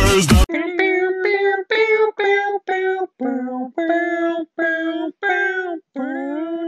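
Electronic dance music cuts off about half a second in. A high voice then sings a simple tune in short, separate notes, about two a second, each note held at a steady pitch with a brief gap before the next.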